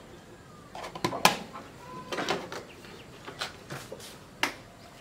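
Irregular sharp clicks and knocks of kitchen containers and utensils being picked up and set down by hand, about half a dozen in all.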